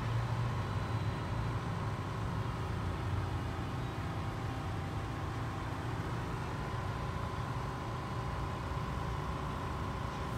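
Mark VII ChoiceWash XT rollover car wash running, its spinning foam brushes scrubbing a car amid water spray, heard through the bay's glass window. It is a steady wash of noise over a low hum, with a faint whine.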